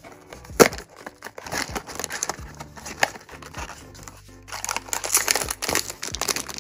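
A paperboard box flap is pulled open with one sharp click about half a second in, followed by the crinkling of a foil bag inside the box, densest near the end. Background music plays underneath.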